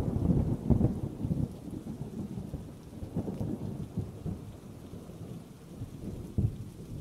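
Thunder rumbling over steady rain. The rumble is loudest at the start and rolls away over the next few seconds, with a fresh crack of thunder near the end.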